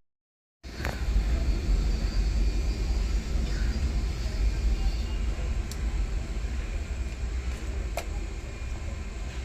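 Realme 11 kg top-load washing machine running on a test after its gearbox repair: a steady low motor hum with a few faint clicks, starting abruptly about half a second in.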